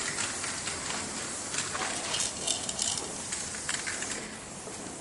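Aerosol spray paint cans hissing in short bursts of about half a second, the strongest about halfway through, over a steady outdoor background noise.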